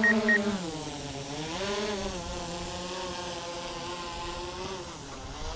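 DJI Mavic quadcopter drone's propellers whining as it hovers and manoeuvres, the pitch dipping and rising as the motors change speed. Rapid beeping, about four beeps a second, stops about half a second in.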